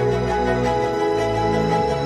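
Background music: sustained, steady held notes over a bass line with a light beat.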